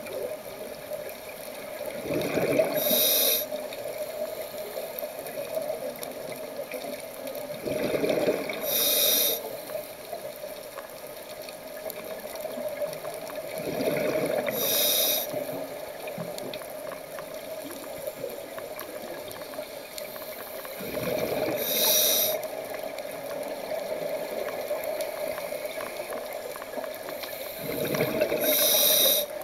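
Scuba diver's regulator breathing heard underwater: five slow breaths about six to seven seconds apart, each swelling and ending in a short burst of exhaled bubbles, over a steady hum.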